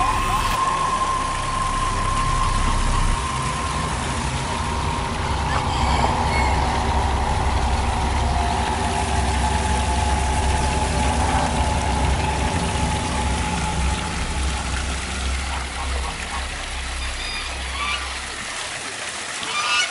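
Small rock waterfall splashing into a pond, under a steady low rumble that drops away near the end.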